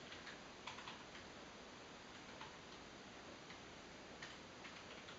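A cat licking a shaggy fleece mat: faint, irregular clicks of its tongue working the fibres.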